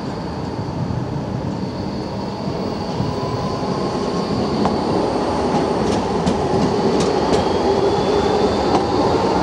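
Low-floor electric tram passing close while turning through a street curve. Its running noise grows louder as it nears. A few sharp clicks come about six to seven seconds in, and a faint high squeal follows near the end.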